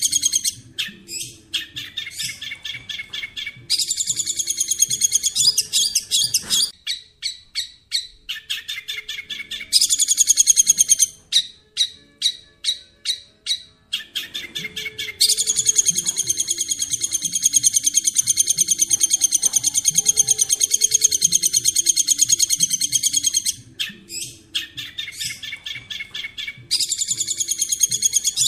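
A songbird sings in long, fast, high chattering trills, broken by runs of separate sharp chips at about two or three a second. The longest unbroken trill runs for about eight seconds in the middle. Under the song is an uneven low rumble.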